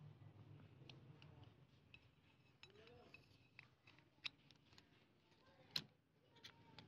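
Faint clicks and light scrapes of small metal pump parts being handled, with one sharper click near the end. An aluminium end cap is slid along a steel piston rod and pressed onto the foot pump's cylinder.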